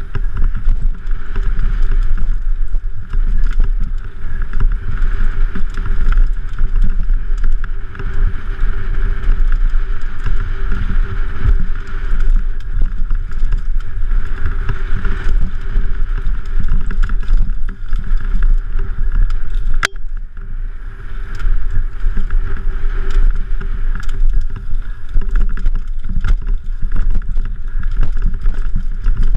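Downhill mountain bike descent heard from a helmet camera: steady wind buffeting and rumble, with the bike rattling and clattering over rough dirt trail. A single sharp knock stands out about twenty seconds in.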